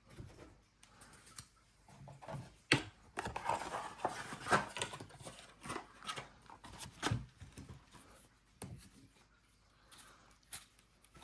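Trading cards and foil pack wrappers being handled: a stretch of rustling in the middle, with a few sharp clicks.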